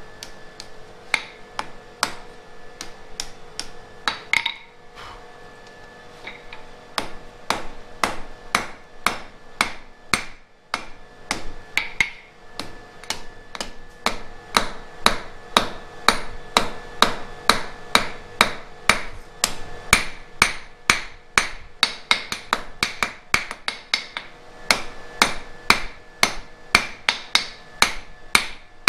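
Blacksmith's hammer striking red-hot flat iron on an anvil while shaping the tines of a forged toasting fork, a steady run of blows about two to three a second with the anvil ringing under them. The hammering pauses briefly a few times early on, then runs louder and more regular from about halfway.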